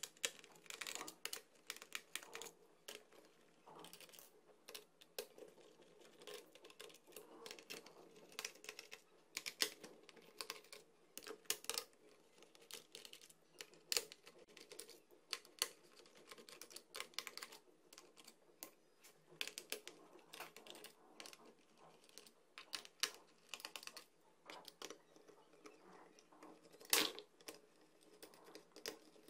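Irregular small clicks, taps and light rattles of hands and a small screwdriver working on a Toshiba laptop's plastic underside. The clicks come several a second with short gaps, and a sharper knock comes near the end.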